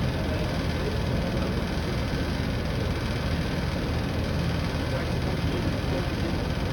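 Air-conditioning system running with a steady, even mechanical hum while it is being charged with R454A refrigerant.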